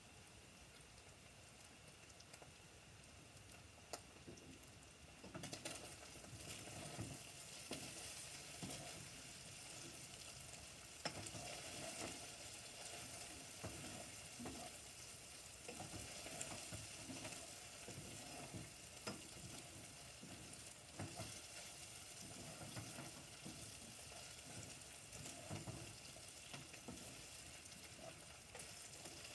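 Food frying faintly in a nonstick pot, the sizzle starting about five seconds in, while a spatula stirs it with repeated scraping strokes.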